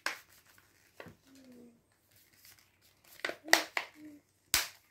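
About five sharp clicks and taps from hands handling a tablet's plastic and metal casing, two of them close together past three seconds in.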